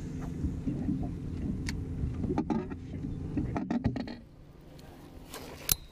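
Bass boat's electric trolling motor humming steadily, dropping much quieter about four seconds in, with a single sharp click near the end.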